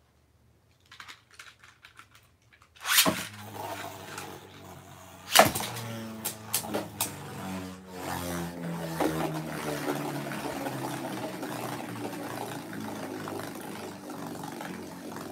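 Two Beyblade spinning tops launched into a stadium: a loud ripping launch about three seconds in and a sharp clack a couple of seconds later, then a steady whirr as the tops spin on the stadium floor, with small clicks as they touch.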